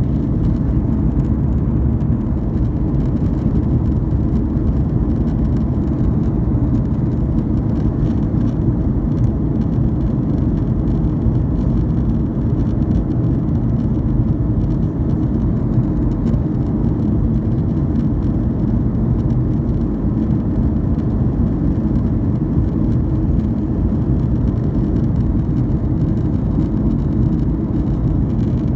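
Steady low rumble of a Boeing 737 airliner's jet engines and rushing air, heard inside the passenger cabin during the climb after takeoff.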